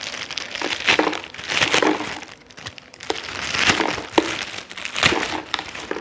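Thin clear plastic packaging crinkling in several spells as it is pulled off a plastic cold-cuts storage container, with a few sharp crackles.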